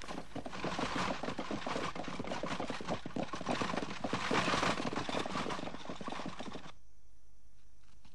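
Horses' hooves beating fast and densely on dry ground as a horse-drawn war chariot goes past, many hoofbeats overlapping. The sound cuts off suddenly near the end.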